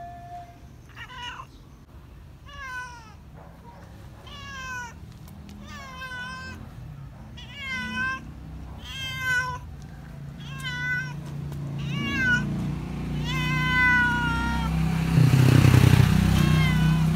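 Domestic cat meowing again and again, about one meow every second and a half, each call rising then falling in pitch. A low rumble builds underneath and is loudest near the end.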